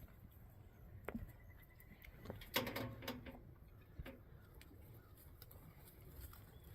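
Dairy cows feeding on baleage: faint rustling and scattered knocks, with a louder clatter about two and a half seconds in.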